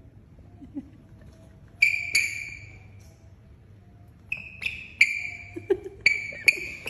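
Rubber-soled sneakers squeaking on a glossy tiled floor as the feet are twisted and dragged on purpose: short, sharp high squeaks, two about two seconds in, then a quicker run of about six from about four seconds on.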